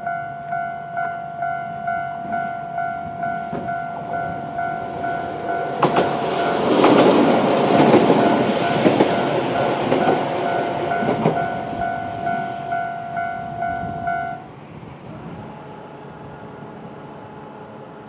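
Japanese level-crossing alarm ringing, an electronic bell tone repeating about one and a half times a second. About six seconds in, an AN-8800 series diesel railcar runs over the crossing with a loud rush and wheel clicks over the rail joints. The alarm stops about fourteen seconds in, leaving a faint hum.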